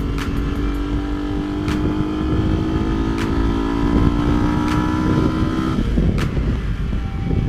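A Yamaha R15 v2's single-cylinder engine pulling as the bike climbs, heard from on board with wind rushing over the microphone. The engine note rises slowly and steadily, then drops sharply about six seconds in.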